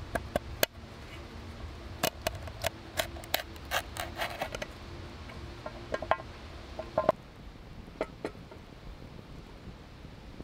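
Pocketknife blade cutting carrots and parsnips against a black enamel pan: a quick, irregular string of sharp clicks and taps on the enamel, some ringing briefly, that thins out and stops about eight seconds in.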